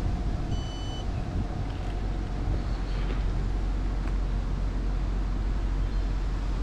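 Steady low rumble of wind on the microphone and an idling vehicle. About half a second in there is one short electronic beep, typical of a car wash payment terminal's keypad.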